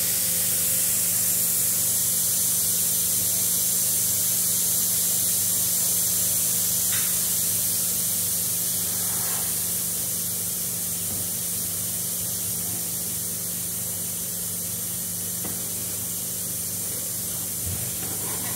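Steady hiss of air with a low steady hum beneath, from a robotic-arm large-format 3D printer's extruder head running; the hiss eases slightly about half way.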